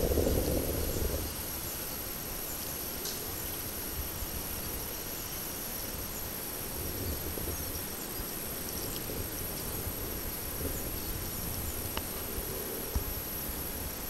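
Rural outdoor ambience: a steady hiss under a constant high, thin insect whine, with a brief low rumble in the first second and a few faint ticks.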